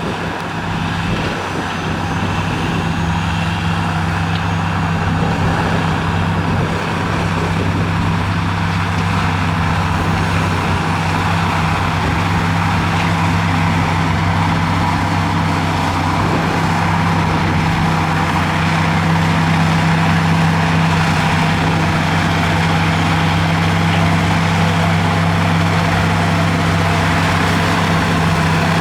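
Diesel engine of heavy earthmoving equipment running steadily, a constant low drone with dense mechanical noise above it.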